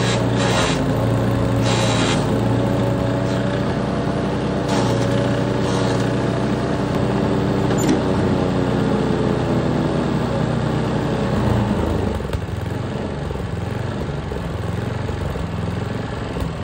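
A Troy-Bilt chipper's 10 HP Tecumseh engine running steadily, with a few light clicks early on. About twelve seconds in, the sound drops and goes uneven, surging, which the owner puts down to a dirty carburetor.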